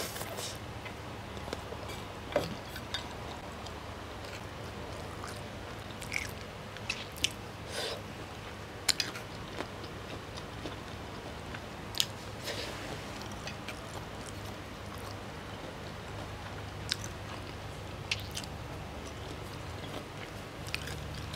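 A person eating spaghetti close to the microphone: chewing, with scattered short sharp clicks and mouth smacks over a steady low hum.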